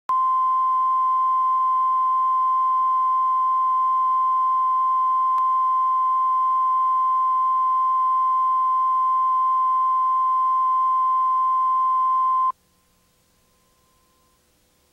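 Steady 1 kHz line-up test tone that runs with the colour bars at the head of a videotape. It cuts off suddenly near the end, leaving near silence.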